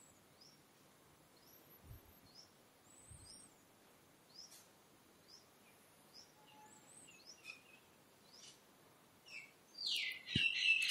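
Birds chirping faintly, short rising chirps about once a second, over quiet room tone. Near the end a sharp click is followed by a much louder, shrill chattering call.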